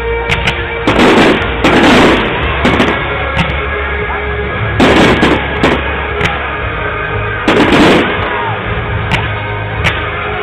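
Aerial firework shells bursting in several loud clusters of bangs, about a second in, around two and five seconds, and near eight seconds, over steady background music. Heard through a mobile phone's microphone, which cuts off the high end.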